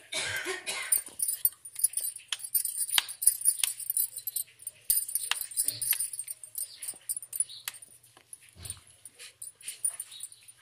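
Bangles on a woman's wrists clinking and jingling as she pinches off dough and rolls it into balls between her palms, with many small sharp clicks. A brief, louder burst of noise comes in the first second.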